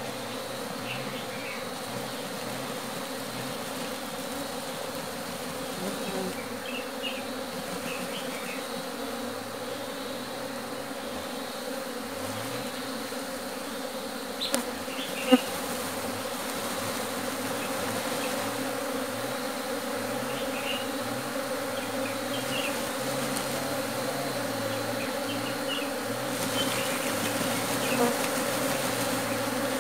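A mass of honeybees humming steadily as a captured colony is emptied from a cloth sack into a hollow-log hive. The hum grows a little louder toward the end, and two sharp knocks come about halfway through.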